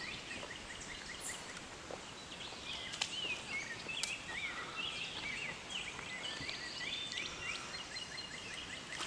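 Songbirds singing: overlapping runs of short, quickly repeated chirps and warbling phrases, over a faint steady outdoor hiss.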